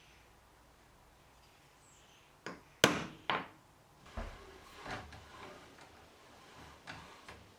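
Objects knocked and set down on a workbench: a few sharp knocks about two and a half to three and a half seconds in, the loudest among them, followed by softer knocks and handling clatter.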